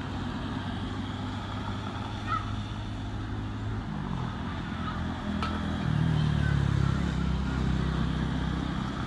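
Car engine running, its low hum shifting in pitch about four seconds in and growing louder near the end as a car passes.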